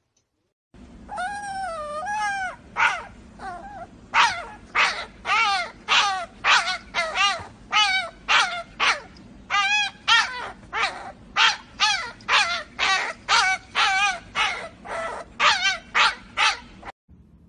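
A puppy yapping over and over, high-pitched and wavering, about two yaps a second, after one longer drawn-out howl near the start.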